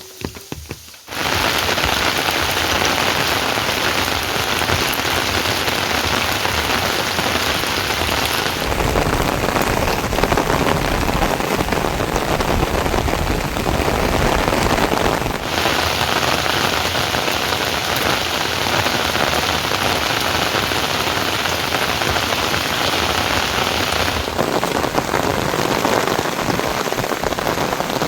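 Heavy rain falling, a dense, steady hiss of downpour that starts abruptly about a second in. Its tone shifts suddenly three times, about a third of the way in, about halfway and near the end.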